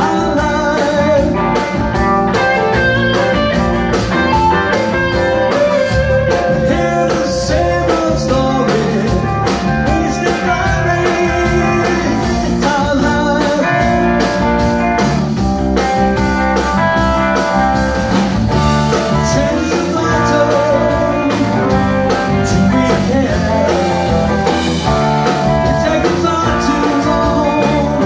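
Rock band playing live: two electric guitars, electric bass and a drum kit, with a steady beat and continuous guitar lines.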